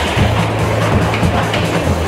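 Loud music with held bass notes, over the rolling rumble of skateboard wheels on concrete.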